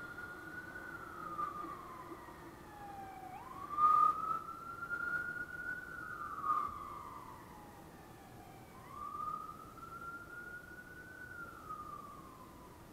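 Emergency vehicle siren in a slow wail, rising and falling in pitch about every five seconds. A sharp knock about four seconds in is the loudest moment.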